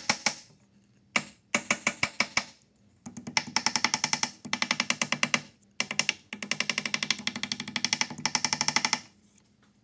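Fingers rubbing hard across the metal nameplate on a Makita 2414 chop saw's polished motor housing, squeaking in fast chattering ticks. Three long runs, stopping about nine seconds in.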